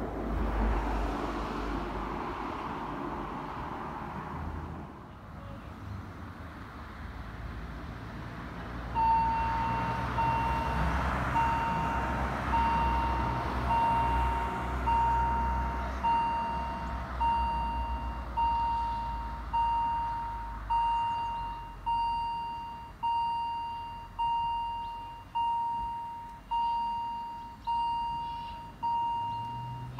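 Outdoor wind and rumble. About nine seconds in, a level-crossing warning bell starts ringing with one clear stroke roughly every second, each fading before the next. It is the warning that a train is coming and the barriers are about to lower.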